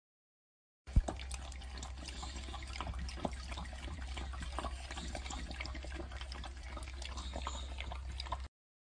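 A dog lapping milk from a steel bowl: soft, irregular wet laps and slurps over a low steady hum, opening with a short knock about a second in.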